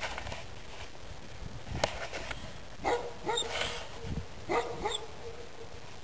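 A Central Asian Shepherd Dog (alabai) barking, a run of about five short barks starting about halfway through.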